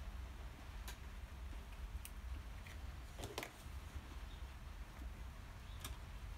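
Quiet room with a steady low hum and a few sparse, light clicks and taps, with a quick cluster of them about halfway through.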